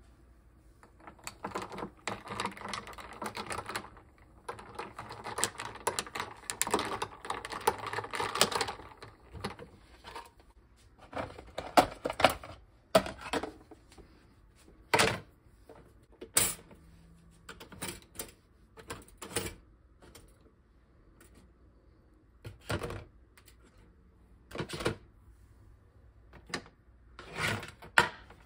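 Kitchenware being handled on a counter. About eight seconds of dense clattering and rustling, then a series of separate sharp knocks and clicks as items, including a plastic bowl, are picked up and set down.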